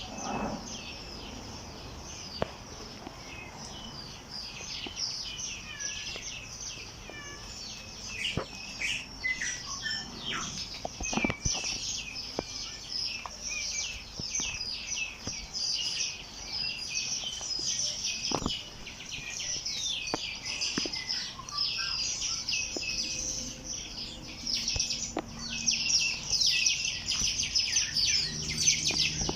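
Many small birds chirping and trilling at once, a dense, continuous chorus of quick high notes that swells a little in the last few seconds.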